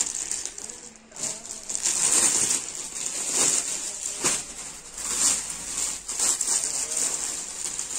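Rustling of woven stoles being handled, unfolded and shaken out, in irregular swishes with a few sharper strokes.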